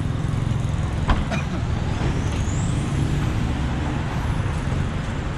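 Motor vehicle on the move: steady engine and road rumble, with a sharp click about a second in and a faint high rising whine near the middle.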